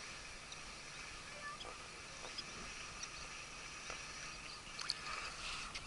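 Faint open-air ambience with soft, high-pitched chirping from wildlife, plus a few small clicks near the end.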